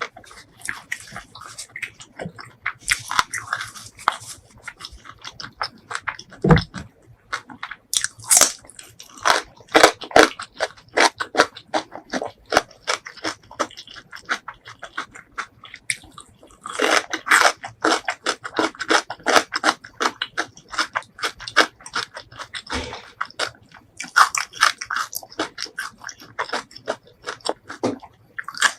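Close-miked eating: biting and chewing with dense, irregular crunching and wet clicking, in bursts that come and go, and one low thump about six and a half seconds in.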